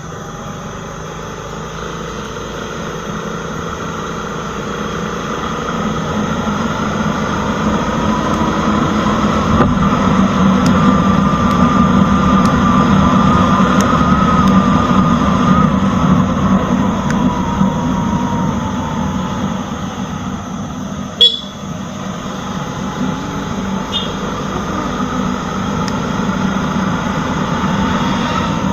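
Motorcycle engine running on the move with wind noise, getting louder as it picks up speed and easing off after the middle. One sharp knock about two-thirds of the way through is the loudest moment.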